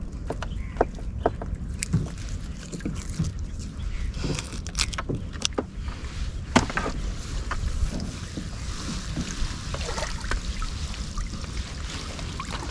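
Gill net being hauled by hand into a small fishing boat: scattered knocks and taps against the boat, with a louder knock about halfway through, over water sloshing and a steady low rumble.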